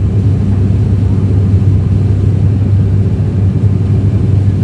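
Steady, loud low drone of a turboprop airliner's engines and propellers heard inside the passenger cabin in flight.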